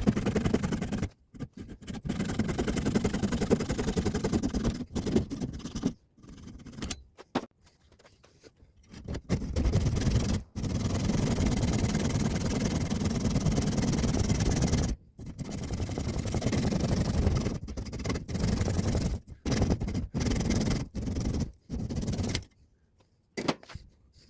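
Bandsaw with a metal-cutting blade sawing down the side of a cleaver's wooden handle, through the wood and its metal pins. The cutting noise comes in stretches of a few seconds that start and stop abruptly.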